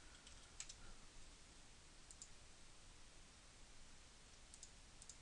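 Near silence with a few faint, sharp clicks of a computer mouse and keyboard, some coming in quick pairs.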